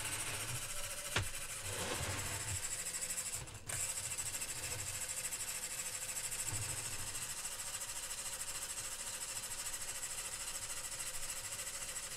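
Small electric motor of a motorised Trent 900 turbofan scale model running, whirring steadily as it spins the model's fan and turbine spools. A single sharp click comes about a second in.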